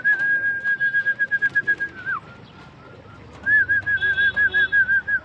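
A person whistling a warbling trilled call to bring racing pigeons into the loft: one long whistle that ends in a falling slide about two seconds in, then a second one starting about a second later.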